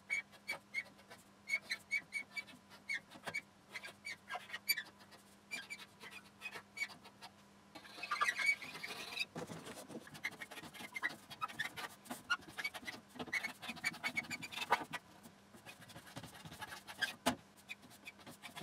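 Marker pen writing on a painted metal instrument lid: many short squeaky, scratchy strokes of the tip. About eight seconds in there is a louder scraping and rustling as the metal-cased unit is turned around on the bench, before the short marker strokes resume.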